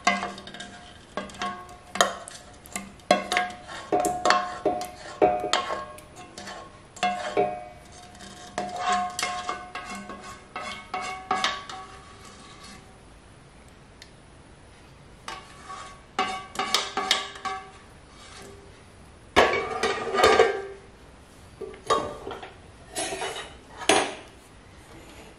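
A metal spoon clinking and scraping against a stainless-steel mixer jar as thick cooked arrowroot paste is emptied into it, with many short ringing clinks. They pause about halfway through, then come back, loudest about three-quarters of the way in.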